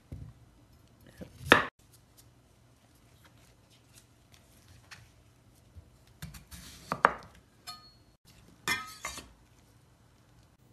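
Chef's knife cutting through a peeled white radish (daikon) and striking the cutting board in a few separate strokes. The sharpest strokes come about a second and a half in and about seven seconds in, with a short run of strokes near nine seconds.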